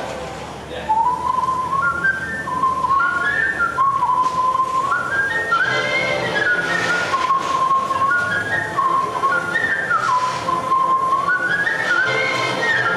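A man whistling a tune into a handheld microphone, clear single notes stepping quickly up and down with a few held notes, starting about a second in.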